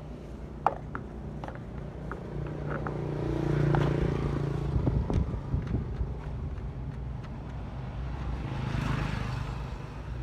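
Small portable petrol generator engine running steadily after its carburettor was cleaned, with a few sharp clicks early on and the sound swelling louder about three to five seconds in and again near the end.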